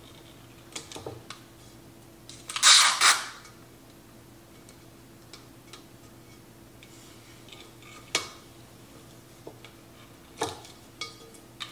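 Clear tape pulled off a handheld dispenser roll: one loud ripping screech about three seconds in, with a few short clicks and taps as strips are torn off and pressed onto a vase.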